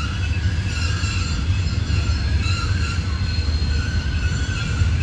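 Norfolk Southern coal hopper cars rolling past in a steady low rumble. Faint high wheel squeal rides above it, typical of steel wheel flanges grinding through a tight curve.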